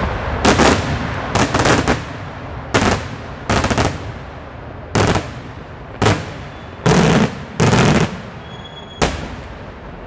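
Daytime fireworks shells bursting overhead: a series of loud, sharp bangs, about one a second. Several come as quick strings of rapid cracks, and each fades off briefly.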